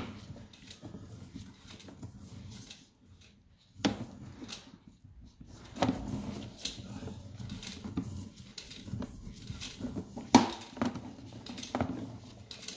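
Scattered knocks and rattles of a sewer inspection camera's push cable and reel being handled while the camera is worked back through the drain line, with faint rustling between the knocks.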